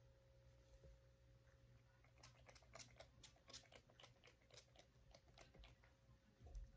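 Faint, rapid spritzes of a heat-protectant spray bottle misting the hair, about four a second, starting about two seconds in and stopping near six seconds. A low steady hum of room tone sits underneath.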